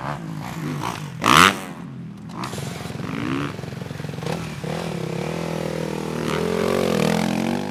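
2016 Suzuki RM-Z250 motocross bike's four-stroke single-cylinder engine running and being revved, with a short loud burst about a second and a half in. Near the end the revs climb as the bike pulls away.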